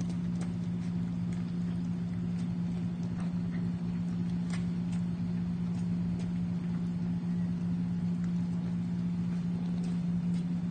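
A steady low machine hum, with faint scattered clicks and crunches of two dogs eating dry kibble from a metal tray.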